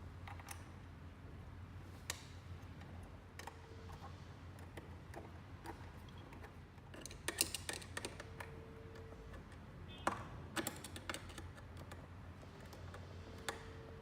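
Scattered small clicks and light knocks from a floodlight fixture being fitted and fastened to its wall bracket with cap nuts. The clicks come in short clusters about seven and ten seconds in, over a low steady hum.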